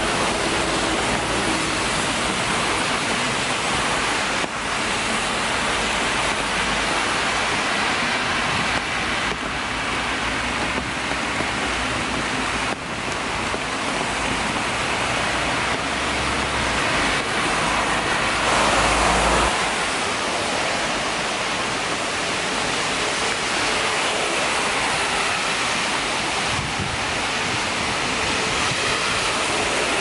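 Traffic on a rain-soaked road: a steady hiss of tyres on wet asphalt, with a low rumble that swells louder as a vehicle passes about 18 seconds in and then drops away.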